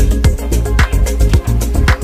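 Upbeat background music with a steady drum beat and bass.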